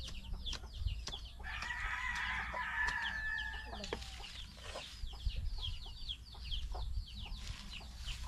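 A rooster crows once, starting about a second and a half in and lasting about two seconds, over a steady stream of quick, high, falling chirps from small birds or chicks.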